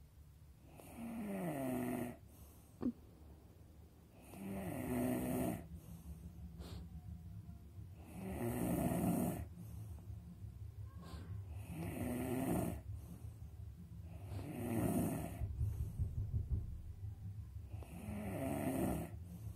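Snoring: six long snores, about one every three and a half seconds, with quieter low breathing between them. A single sharp click comes about three seconds in.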